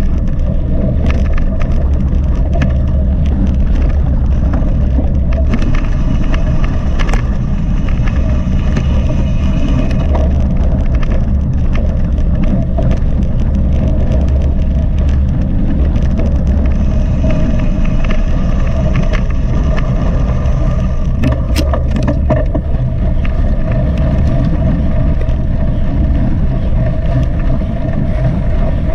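Mountain bike being ridden fast, heard through a GoPro's microphone: a loud, steady rumble of wind and rolling noise, with scattered clicks and rattles from the bike.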